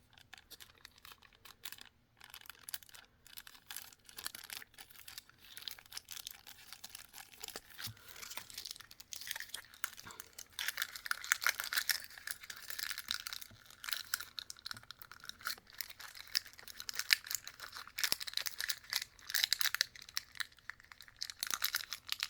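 Plastic packaging being crinkled and torn at by hand, a long run of irregular crackling that grows louder and busier from about ten seconds in; the tear notches won't easily give.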